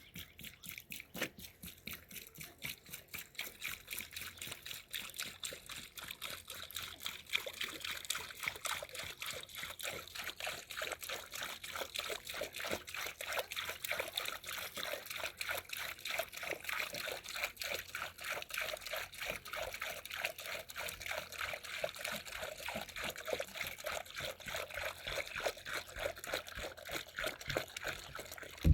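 Liquid trickling and dribbling in a fast, uneven patter that grows a little louder after the first few seconds, ending with a single sharp knock.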